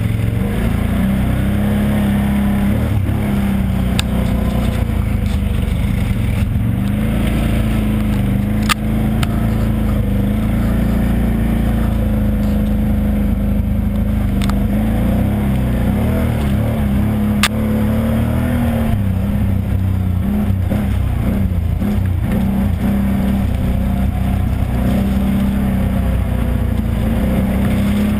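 ATV engine running under load while riding a muddy trail, its pitch rising and falling with the throttle. Three sharp knocks come as the quad jolts over the rough ground.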